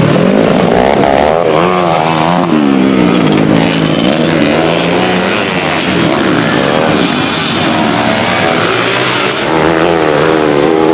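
Several racing motorcycle engines revving hard at once, including a two-stroke Kawasaki Ninja 150. Their pitches repeatedly climb and drop as they rev through the gears.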